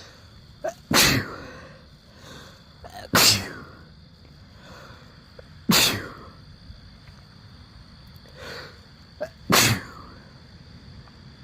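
Four sneezes, about two to four seconds apart, three of them with a short sharp sound just before.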